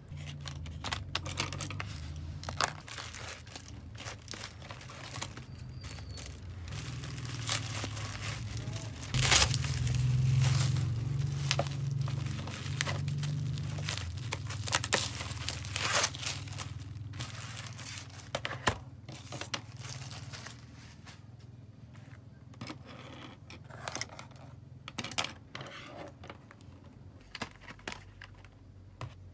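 Bubble wrap and plastic packaging crinkling and tearing as a set of pens is unwrapped by hand, with many scattered sharp crackles and clicks. A low hum runs underneath and is stronger midway through.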